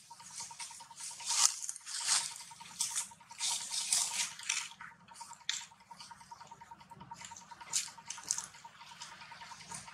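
Long-tailed macaques making irregular wet smacking and clicking mouth sounds at close range, busiest in the first half and again briefly near the end. A faint steady pulsing tone runs underneath.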